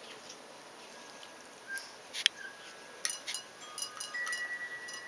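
A tiny dog's paw and kibble clinking against a stainless steel food bowl: a few sharp ticks, the loudest about two seconds in, with the bowl ringing on briefly after some of them.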